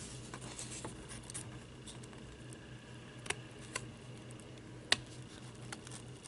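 Scissors cutting slowly through medium-weight cardboard with a paper pattern taped on: a few separate crisp snips, the loudest about five seconds in.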